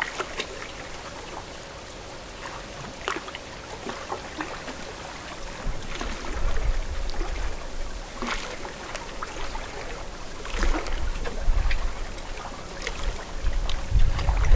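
Small lake waves lapping and splashing against the shore, a scatter of little irregular splashes over a soft wash. Gusts of wind rumble on the microphone now and then, growing stronger near the end.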